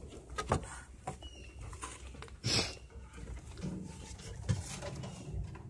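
Caged quail: scattered knocks and rustles against the cage, with one brief high peep about two seconds in.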